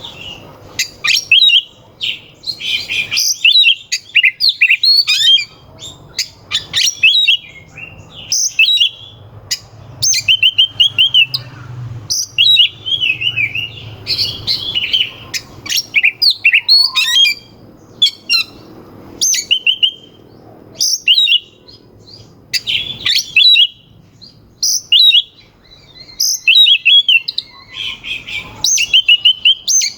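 Oriental magpie-robin (kacer) singing loudly in full song. It gives short, rapid bursts of sharp, harsh whistled and chattering notes, broken by brief pauses.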